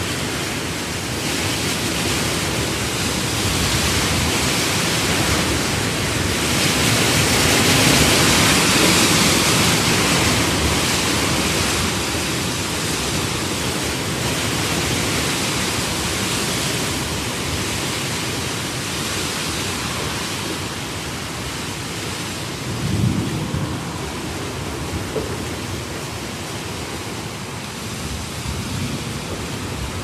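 Heavy, steady rain, swelling louder for a few seconds about a quarter of the way in, with a brief low rumble about three-quarters of the way through.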